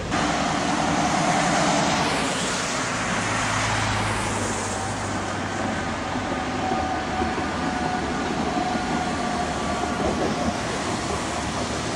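Tatra KTNF6 articulated trams (rebuilt KT4s with a low-floor centre section) running past on the street, with the steady rumble of wheels on rails and faint steady tones from the running gear.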